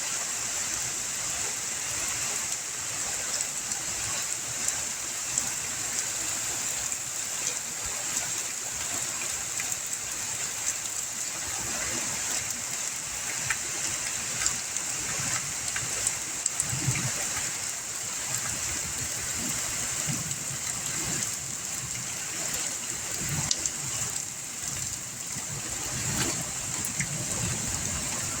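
Steady rain falling: a continuous hiss with scattered ticks of drops landing.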